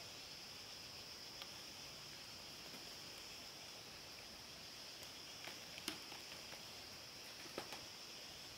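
Faint, steady high-pitched insect drone, with a few light clicks or knocks scattered through it, the loudest about six seconds in.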